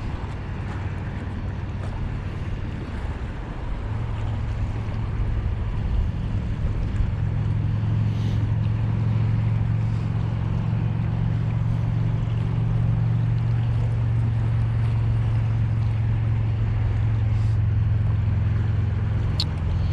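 An engine drones steadily, growing louder about four seconds in and holding there, over a haze of wind and water noise.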